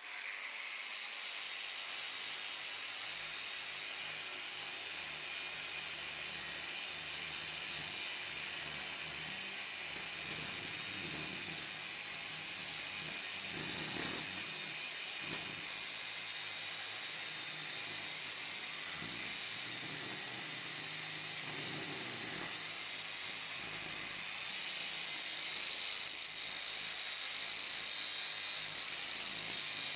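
Handheld angle grinder starting up and running with a ball-shaped carving cutter on an extension shaft, a steady high whine as the cutter carves into wood. Rougher, lower cutting noise comes and goes in the middle as the cutter bites.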